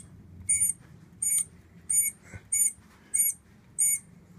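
Hand reamer turned in a tap wrench, squeaking as it cuts a new brass throttle-shaft bushing in an SU H-type carburetor body. Short high squeaks repeat evenly, about six in a row, one every two-thirds of a second.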